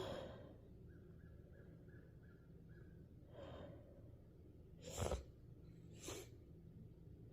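The tail of a woman's sneeze fading, then quiet breathing and two sharp breaths through the nose about five and six seconds in, the first one the loudest.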